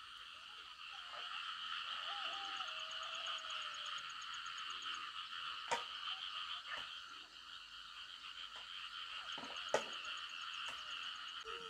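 A dense, steady chorus of frogs calling, with a faint rapid ticking in two stretches and a few sharp clicks.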